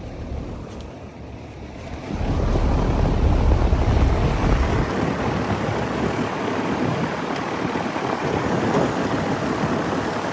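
Heil QuietComfort 3-ton central air conditioner's outdoor unit running. About two seconds in, its condenser fan's air rushes loudly over the microphone, buffeting heavily for a few seconds and then settling into a steady rush. Airflow is weak, which the owner puts down to the filthy unit being clogged.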